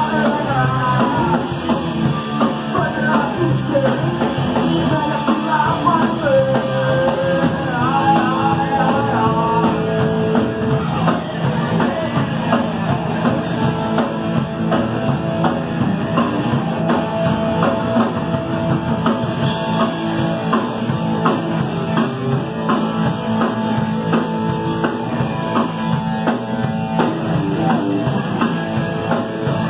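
Punk rock band playing live: drums, guitar and sung vocals, loud and continuous.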